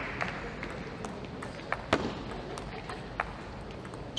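Table tennis rally: the ball clicking sharply off the rackets and table, a string of separate ticks with the loudest about two seconds in.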